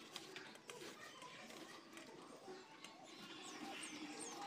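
Peeled raw mango being shaved into thin slices on a metal box grater: faint repeated scraping strokes with small clicks.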